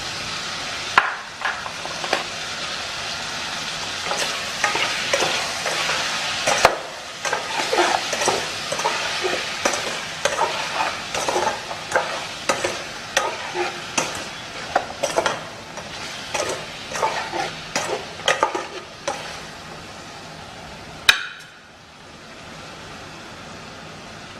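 Food sizzling in a hot pan while a spatula repeatedly scrapes and knocks against the pan as the ingredients are stir-fried. Near the end there is one sharp clank, and after it the sizzle falls to a quieter steady hiss.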